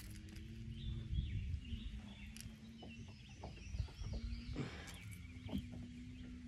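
Birds chirping and singing over a faint steady low hum, with a few light clicks from a jerkbait being worked free of a small smallmouth bass's mouth.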